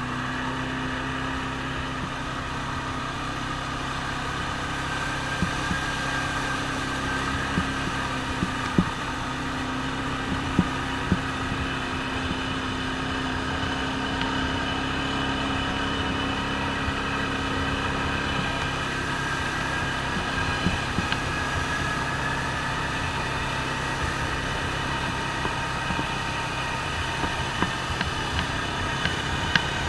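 ATV engine running steadily at a moderate pace while driving through shallow creek water, with water splashing and scattered short knocks.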